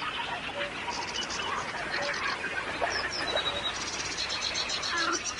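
Small songbirds singing in a reed bed: fast runs of short, high repeated notes about a second in and again near the end, with scattered chirps over a busy background of other calls.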